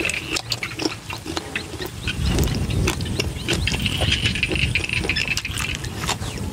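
Close-up chewing of crunchy green papaya salad and fried pork: wet crunching and smacking, many small sharp clicks.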